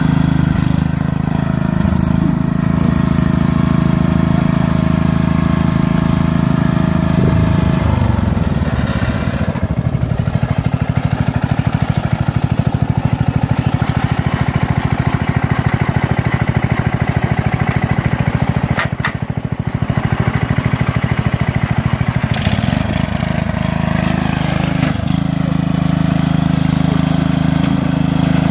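Riding lawn mower engine running at full throttle. About eight seconds in its pitch drops and it labours at a slower, pulsing beat for some fifteen seconds, with a couple of sharp knocks near the middle, then picks back up to a steady run.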